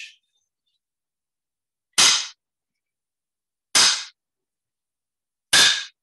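Wooden clapper struck against the palm three times, sharp clacks evenly spaced a little under two seconds apart, each dying away quickly: the strikes that mark the close of the talk.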